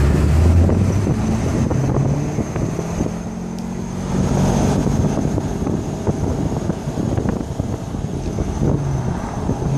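A thin, high-pitched squeak from the 2002 Corvette C5 Z06, heard from inside the moving car over the engine and road noise. It persists while the car rolls at low speed; the owner wonders whether a loose belt is the cause.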